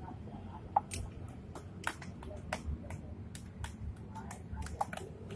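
Irregular sharp little clicks and taps, well over a dozen, as fingers handle the speed-sensor wiring and its plastic clips above the rear gearbox of a Honda scooter.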